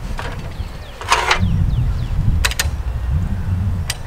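U-bolt hardware on an antenna mast clamp clicking a few sharp times as it is hand-tightened, with a brief scrape about a second in, over a steady low rumble.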